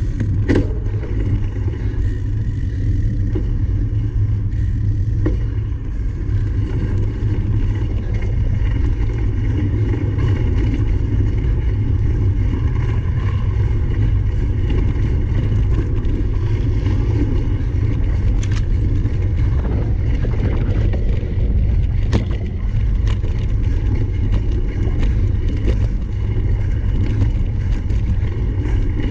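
Riding noise from a cyclocross bike being raced over rough ground: a steady, loud low rumble of wind on the onboard camera's microphone, with the bike rattling and a few sharp knocks, the clearest about half a second in and twice later on.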